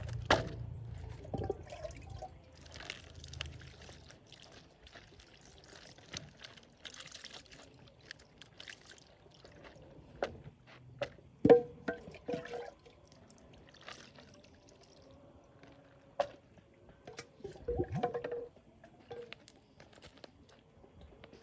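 Kitchen food-prep sounds: scattered clicks and knocks of utensils and containers, with a few louder clinks and what may be liquid being poured.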